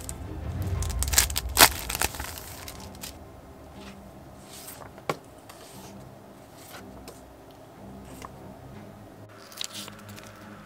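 Clear plastic packaging crinkling and paper rustling as a comic book and paper inserts are handled out of a box, densest and loudest in the first two seconds, then softer scattered rustles and page turns with a single sharp click about five seconds in.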